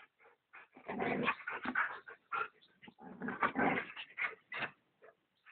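Dogs play-fighting, with rough dog vocalizing in two bursts, one about a second in and another around three seconds in, with scattered shorter sounds between and after.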